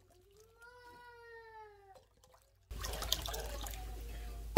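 A single long, drawn-out meow-like call, its pitch rising a little and then falling away, over near silence. About two and a half seconds in, steady kitchen noise with small clicks and clinks takes over.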